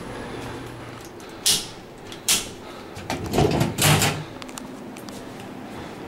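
A door being handled: two short sharp knocks about a second apart, then a longer clattering rattle about three seconds in.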